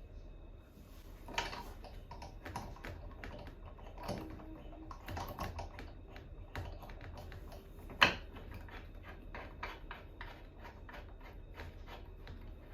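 Irregular small clicks and taps of hard parts being handled, with one sharp knock about eight seconds in.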